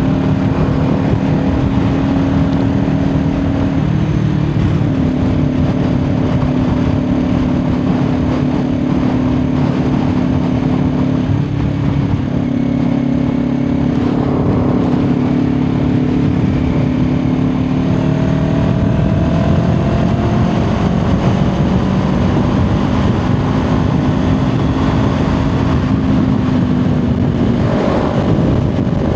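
Kawasaki Ninja 400's parallel-twin engine running at a steady highway cruise, its pitch dipping slightly and recovering a few times with small throttle changes, under constant wind and road noise.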